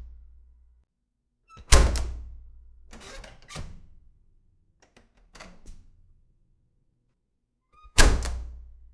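A door being shut: two heavy slams, about two seconds in and near the end, each with a boomy ringing tail and a small latch click just before, with lighter knocks and clicks between them.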